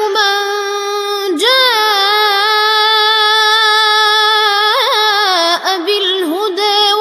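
A boy reciting the Quran in melodic tajweed style (Warsh 'an Nafi' reading), holding one long drawn-out note for about four seconds with a quick trill near its end, then moving on in shorter, bending phrases.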